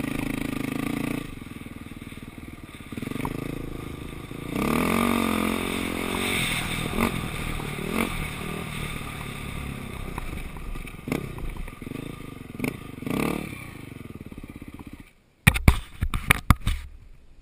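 Dirt bike engine running at part throttle, easing off about a second in, then revving up briefly a few seconds later, with knocks and rattles from riding over rough sand. Near the end the engine fades and a gloved hand handling the helmet-mounted camera makes a run of loud knocks and bumps.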